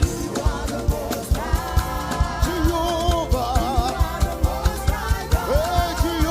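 Live gospel praise music: singing over a band with a fast, steady drum beat.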